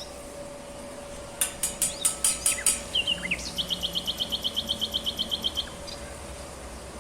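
A songbird singing: a quick run of sharp high notes, then an even trill of about ten notes a second lasting some two seconds, over a faint steady hum.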